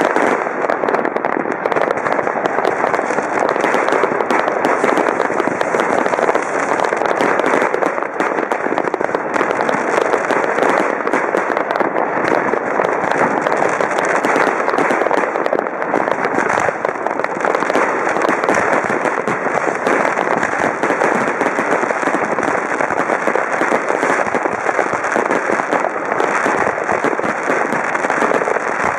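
Many fireworks going off at once, a continuous din of rapid, overlapping bangs and crackling with no pause.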